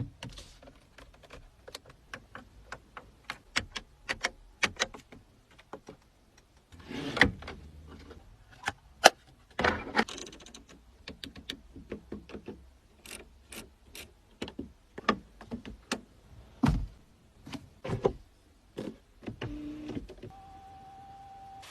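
Mercedes-Benz G-Class cabin controls and fittings being worked: a long, irregular run of sharp clicks and knocks with a few heavier thumps, and a short steady tone about a second long near the end.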